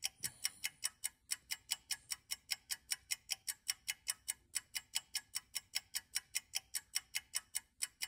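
Rapid, even clock-like ticking, about six sharp ticks a second. No snoring is heard.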